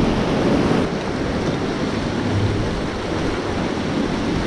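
Whitewater rapid rushing and splashing around an inflatable raft, with spray hitting the camera and a steady wash of noise.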